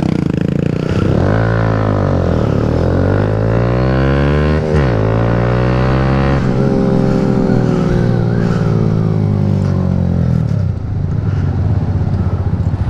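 Motorcycle engine, heard from the rider's seat, accelerating with its pitch rising and breaking at two gear changes, then falling as the bike slows, and settling into a lower, steady putter near the end.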